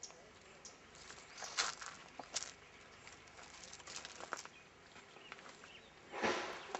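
Faint scattered rustling and crackling, with a louder rush of rustling noise about six seconds in.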